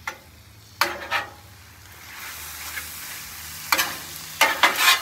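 Creamy corn esquites mixture sizzling on a hot flat-top griddle while metal spatulas stir and scrape it across the steel. There is a short scrape about a second in and a quick run of scrapes near the end.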